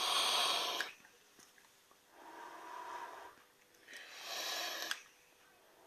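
A person drawing on and exhaling from an Aspire Cleito 120 vape tank: three breathy hisses, a loud one at the start, a softer one about two seconds in, and another loud one about four seconds in.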